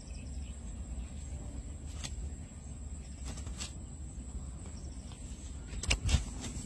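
Rustling and knocking as a mesh fishing net holding caught fish is handled on grass, with a few light clicks and a louder cluster of thumps about six seconds in. Under it runs a low steady rumble and a thin, steady high insect-like whine.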